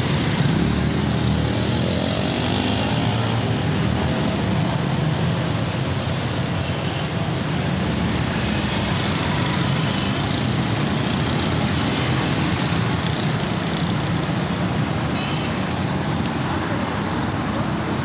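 Motorcycle riding through road traffic: the engine running and a steady rush of wind over the microphone, with passing traffic around it.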